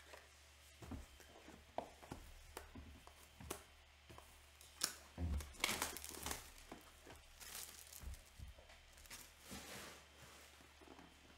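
Faint tearing and crinkling of trading-card pack wrappers being opened, in scattered short bursts with a longer stretch of tearing about five to six and a half seconds in.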